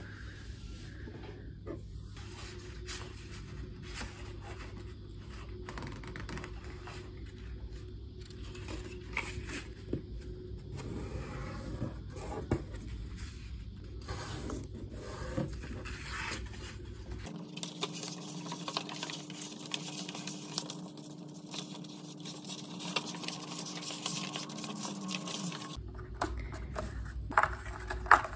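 White paper being handled by hand on a desk: sheets rubbing and scraping as they are smoothed and creased. A concertina-pleated paper strip crinkles more loudly near the end.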